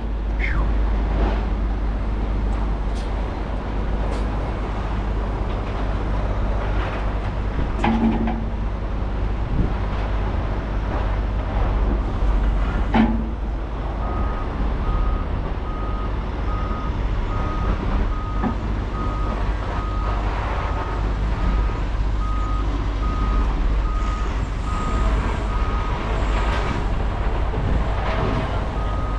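Heavy diesel engine idling with a steady low rumble. About halfway through, a reversing alarm starts beeping steadily, a little over once a second; a couple of short knocks come before it.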